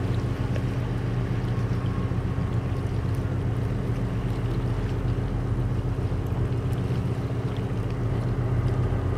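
Small coastal tanker's diesel engine running steadily while the ship is under way, a constant low drone.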